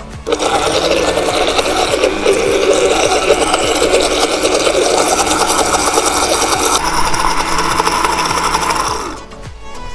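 Glass-jar countertop smoothie blender running, pureeing basil, pine nuts, parmesan, garlic and olive oil into pesto. It starts just after the beginning, the sound turns duller about seven seconds in, and the motor stops about nine seconds in.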